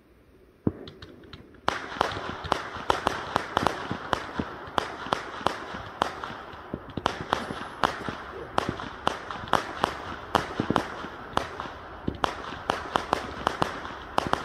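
Fireworks going off: a single sharp pop, then from about a second and a half in a dense, continuous run of sharp cracks and pops, several a second, over a crackling hiss.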